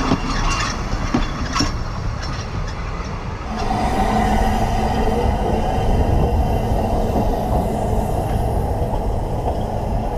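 Ffestiniog Railway narrow-gauge carriages rolling past close by, with a few sharp clicks from the wheels over the rail joints. About three and a half seconds in it changes to the steady running rumble of the train with a steady whine over it.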